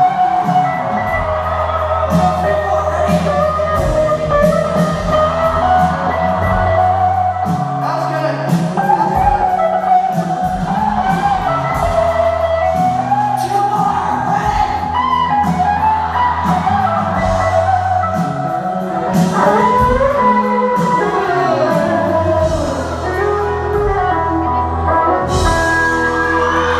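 A live rock band plays: electric guitars, bass and drums with a sung lead vocal, heard from the audience in a large hall.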